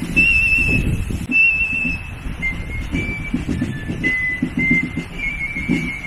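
A fife playing a march tune in high, held notes over a side drum beating the marching rhythm.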